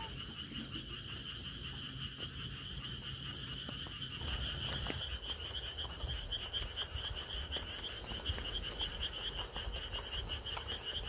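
A chorus of frogs calling at night: a steady, fast-pulsing trill at one high pitch that never lets up. A low rumble comes in about four seconds in.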